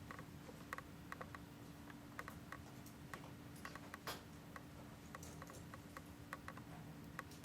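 Faint, irregular light clicks and ticks, a few each second, over a steady low hum: quiet handling noise in a small room.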